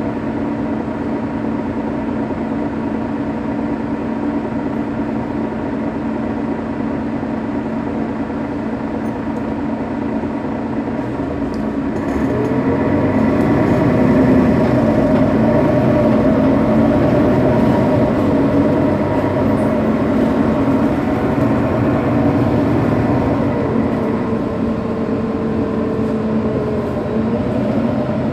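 Mercedes-Benz Citaro bus's OM 457 hLA diesel engine idling at a standstill with a steady hum. About 12 seconds in it grows louder, with a whine that rises, holds, drops again about 24 seconds in, and rises once more near the end.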